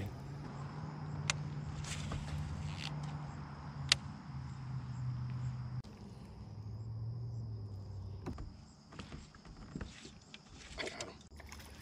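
Fishing reel cranked to retrieve a jig: a steady low whir that stops abruptly about six seconds in, then starts again at a lower pitch for about two seconds. Two sharp clicks come in the first four seconds, over a thin steady insect trill.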